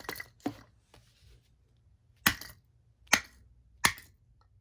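Sharp knocks on the plastic-and-metal base of a TCP LED light bulb as it is forced off: two close together at the start, then three more spaced about a second apart.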